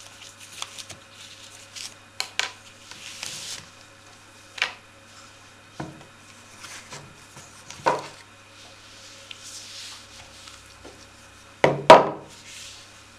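Handling of a felted hat on its hat block as the ribbon and wooden stick are taken off: scattered light knocks and taps a second or two apart. The loudest pair of knocks comes near the end, as the block is turned over.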